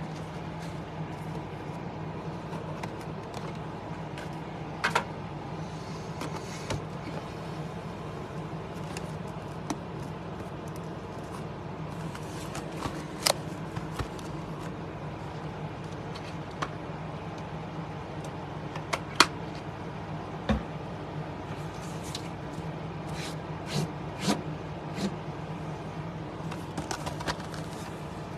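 Sealed trading-card hobby boxes handled and shifted on a desk mat, giving scattered light taps and knocks over a steady low hum.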